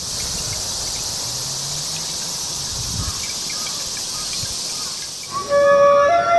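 A chorus of summer insects shrilling steadily in the trees, a high, even buzz. About five seconds in it fades, and a flute melody starts with long held notes stepping in pitch.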